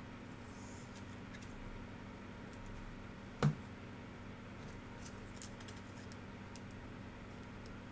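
Trading cards and a rigid plastic toploader being handled: faint small clicks and slides, with one sharp plastic tap about three and a half seconds in, over a steady low hum.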